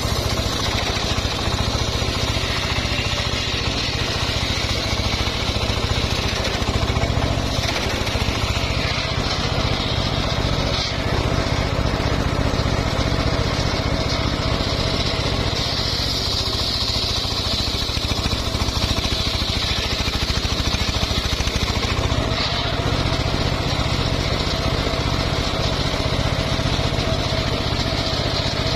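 Engine of a homemade circular sawmill running steadily under load, with a high whine that swells for several seconds past the middle.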